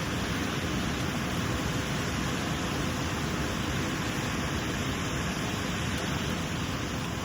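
Steady rushing water of the Elk River at its waterfall: an even, unbroken wash of water noise.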